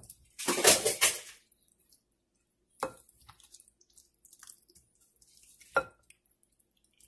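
Hands working raw chicken drumsticks through a wet spice marinade in a glass bowl: a loud wet squelch about half a second in, then soft squishing, with two sharp knocks against the glass bowl, one near the middle and one near the end.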